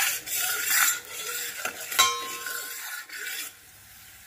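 Steel spoon stirring and scraping against a steel bowl of Thums Up cola boiled down to a thick, bubbling paste: a rasping scrape, with a sharp clink about two seconds in. It stops about three and a half seconds in.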